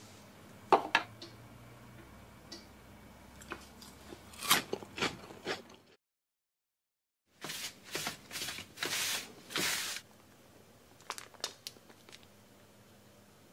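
Kitchen handling sounds: sharp clicks and knocks as a plastic salad spinner bowl is handled on the counter, a gap of dead silence, then plastic wrapping crinkling as a bag of fresh noodles is handled, with a few light clicks near the end.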